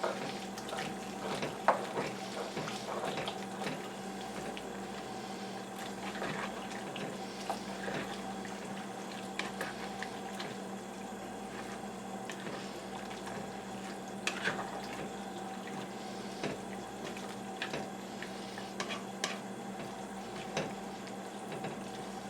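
Cornstarch-thickened sauce with chicken and bok choy simmering in a pot on the stove, with scattered small pops and clicks against the pot over a steady hum.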